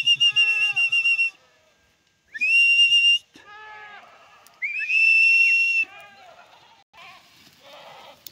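A shepherd whistling three long, steady, high notes about a second apart in length, with goats and sheep bleating in the gaps between the whistles. The whistles call the flock in to be given salt.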